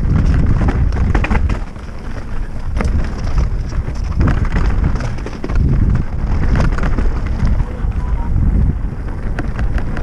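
Wind buffeting the microphone of a camera on a mountain bike descending fast, with tyres rolling over a wet dirt trail and the bike rattling and clicking over bumps.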